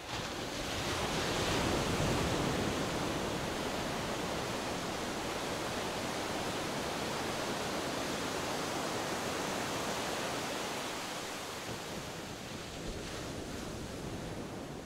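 Steady rushing outdoor ambience with no distinct events. It swells up over the first couple of seconds, holds level, and eases slightly near the end.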